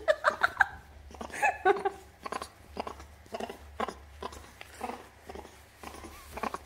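Baby hamadryas baboon's playful 'laughing': a few short pitched calls in the first two seconds, then a run of short, quick sounds at irregular intervals.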